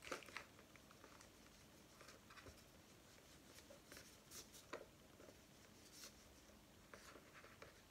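Near silence, with faint rustling and a few light taps from a palm rolling a sausage of plasticine on a paper booklet.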